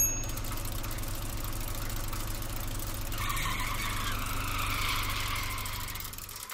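Engine sound effect of a van running steadily, a low even hum. A higher hiss joins about halfway through, and the sound stops abruptly at the end.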